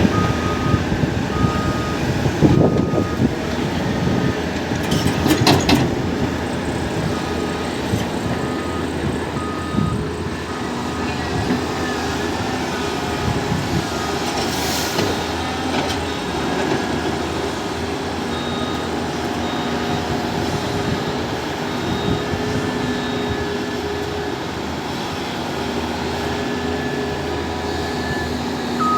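Diesel engines of a tipper truck and excavator running during loading, with a reversing alarm beeping in short, evenly spaced beeps for the first several seconds and other beeps later. A few loud clanks come in the first six seconds.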